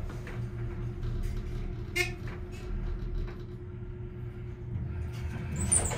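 Dover Impulse traction elevator car travelling down, a steady low hum with a constant tone, broken by a sharp click about two seconds in. Just before the end comes a louder, partly high-pitched sound as the car reaches the lobby.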